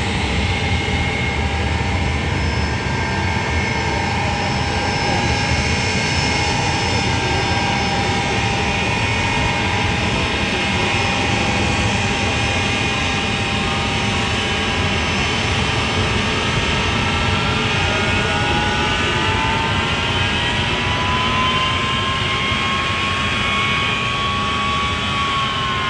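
Ilyushin Il-76 four-engine jet transport taxiing, its turbofan engines running with a steady roar and a whine. The whine climbs in pitch over the last few seconds as the aircraft turns toward the microphone.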